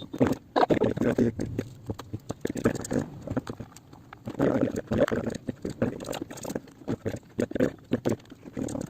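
Irregular knocks, clicks and clatter of hard parts being handled and fitted into a speaker box.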